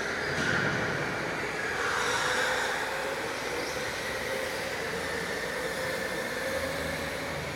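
Electric go-karts running on an indoor track: a motor whine that rises and falls in pitch with speed, over steady tyre noise.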